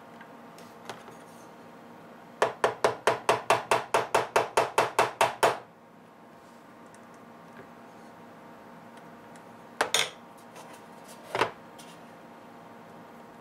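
A quick run of about fifteen sharp, evenly spaced taps or rattles, about five a second for some three seconds, then two single knocks later on: hard objects being handled on a modelling workbench.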